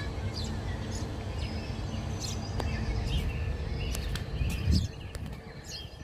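Small birds chirping, with short scattered calls, over a steady low rumble. A louder low thump comes about three-quarters of the way through.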